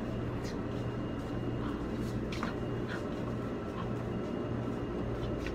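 Room tone of a convenience store: a steady low machine hum with a faint high whine, and a few light rustles and taps.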